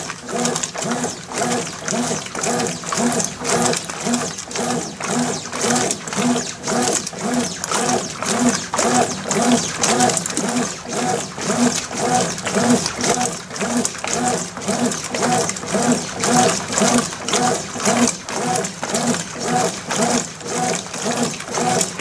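Consul CWB09AB top-load washing machine agitating a tub of water with no clothes in it. The agitator reverses back and forth about twice a second, with the motor hum rising and falling at each stroke over the water sloshing.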